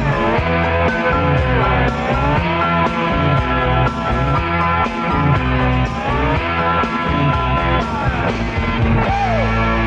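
Instrumental stretch of country-rock music: an electric guitar lead bending notes over a bass line and a steady drum beat.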